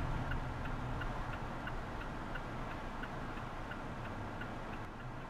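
A car's turn-signal indicator ticking steadily, about three clicks a second, over low engine and road noise inside the cabin that slowly fades.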